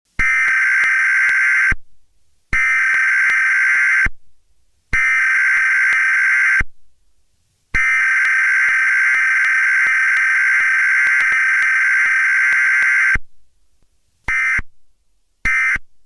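Buzzy electronic emergency alert tone: three blasts about a second and a half long, one long blast of about five seconds, then two short beeps near the end. It is the attention signal that opens an emergency alert.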